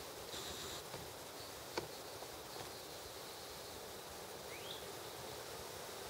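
Outdoor bayou ambience: an insect buzzes high-pitched for about half a second early on, with a single sharp click a little under two seconds in and one short rising chirp near the end.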